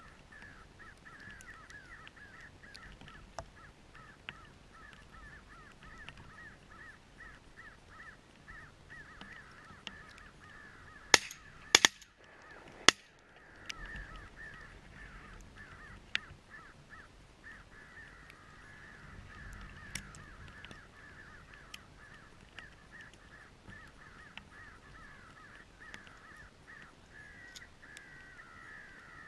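Crows cawing over and over in a dense, unbroken chorus. About eleven seconds in, a quick run of three or four loud gunshots cuts through it within two seconds, and the cawing goes on afterwards.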